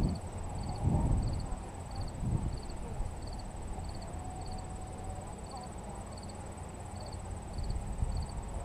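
Wind gusting on the microphone in low rumbles, strongest in the first two or three seconds and calmer after. Through it an insect chirps steadily, short pulsed chirps about three every two seconds, over a thin steady high whine.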